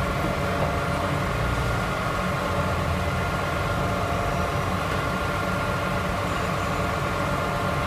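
Bus engine running steadily: a low rumble with a steady whine over it, no change in pitch.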